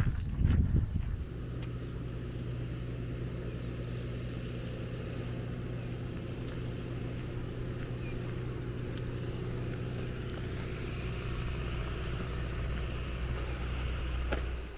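A steady low mechanical hum, like an engine running at constant speed, that cuts off suddenly near the end.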